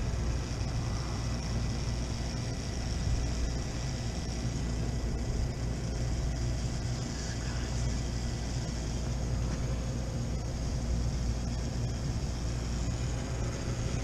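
Walk-in freezer condensing unit running on a rooftop, a steady low mechanical hum from its compressor and condenser fan, with a few faint steady tones above it.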